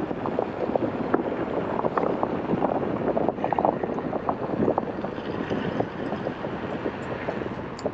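Wind rushing and buffeting over the microphone on a moving motorcycle, a steady rough noise.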